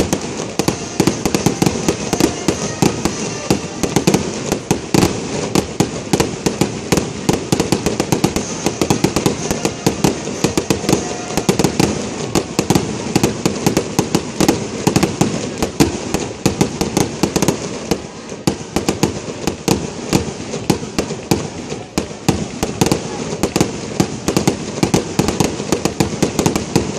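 Aerial fireworks display going off in a dense, continuous barrage: many bangs a second from bursting shells, mixed with crackling, with no pause.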